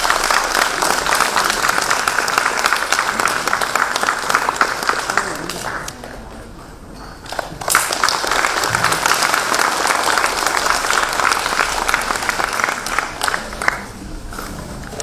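Audience applauding, dying down briefly about six seconds in and then swelling again.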